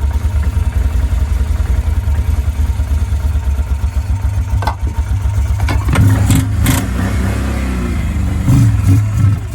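Can-Am Outlander 650 ATV's V-twin engine running rough with a fast, uneven low pulse, surging louder twice, about six and eight and a half seconds in. It keeps going only on sprayed starter fluid, which the owner takes for a fuel-supply fault.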